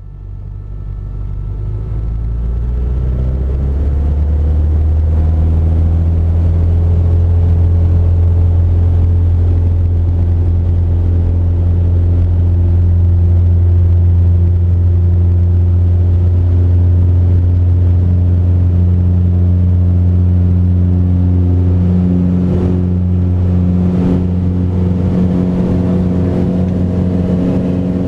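Mooney M20J's four-cylinder Lycoming IO-360 engine and propeller, heard from inside the cabin, building up over the first few seconds to high power for the takeoff roll and then running steadily. Its pitch shifts slightly higher about two-thirds of the way through.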